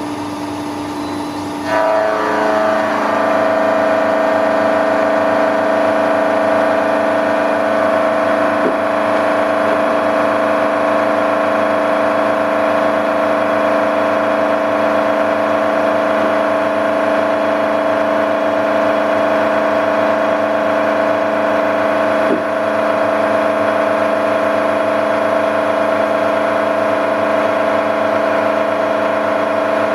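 A milling machine's four-insert face-mill cutter taking a dry cut (no coolant) along the edge of a 1030 steel billet. About two seconds in, the sound jumps to a loud, steady ringing whine with many overtones as the cutter bites into the steel, and it holds there.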